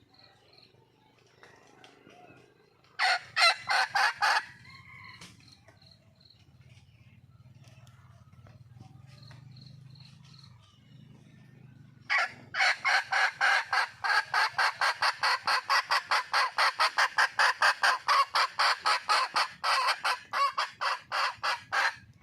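Red junglefowl hen calling for a mate: a short run of quick clucks, then about ten seconds of fast, even clucks, around four a second. Under the calls there is a faint low hum.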